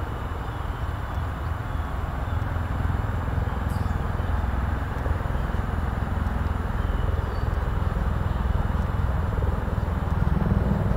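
Steady low outdoor rumble with a hiss above it, with no distinct events.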